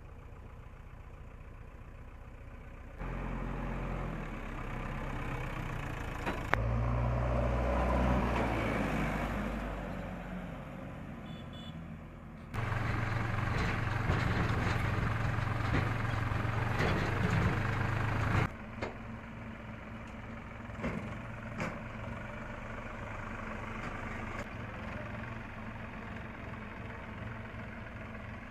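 Diesel engines running: a JCB 3DX backhoe loader, and a New Holland 4710 tractor, both driving and ticking over. The engine sound shifts abruptly in level several times and is loudest for a few seconds near the middle.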